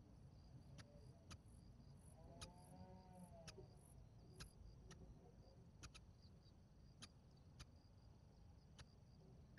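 Near silence: faint background with a steady high whine and scattered faint ticks, and a brief faint wavering tone about three seconds in.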